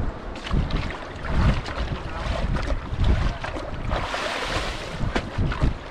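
Water splashing and pouring through a plastic basket of fresh-caught fish as it is dunked in a drum of water and lifted out to wash them, with a few light knocks. A heavier rush of draining water comes about four seconds in. Wind buffets the microphone.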